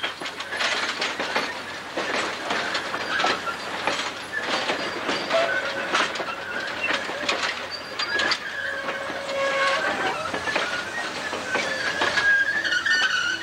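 Algoma Central stainless-steel passenger coaches rolling slowly past, their wheels clicking and knocking over the rail joints. A high wheel squeal joins in during the second half and grows stronger near the end.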